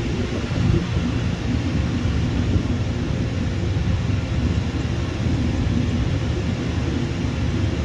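Jet airliner's engines, a steady low-pitched noise that holds level throughout.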